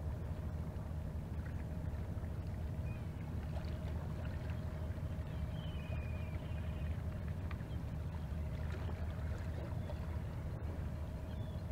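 Fishing boat's engine running at slow speed: a steady low drone with a steady hum tone.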